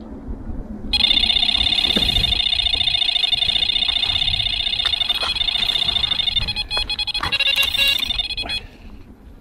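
Carp bite alarm sounding a continuous, rapid high-pitched stream of beeps for about seven and a half seconds as line is pulled from the rod: a run, the sign of a carp take. A few knocks and clicks come in over the alarm's second half.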